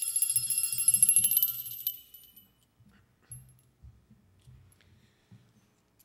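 A small hand bell rung rapidly: a bright, loud ringing of many quick strikes that stops about two seconds in and dies away.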